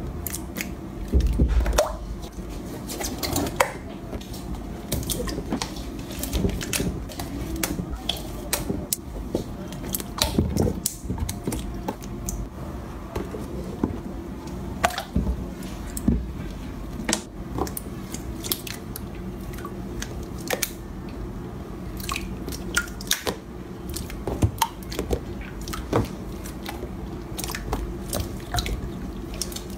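Thick slime squeezed, pressed and worked by hand, giving wet squishing with many small sharp clicks and pops.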